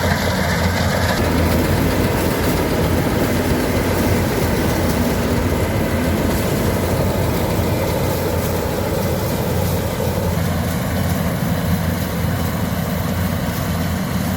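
Mini combine harvester running steadily, a constant low engine hum under a dense mechanical noise.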